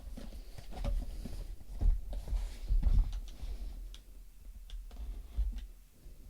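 Hands handling and opening a parcel: irregular knocks and clicks with some rustling, the loudest knocks about two and three seconds in.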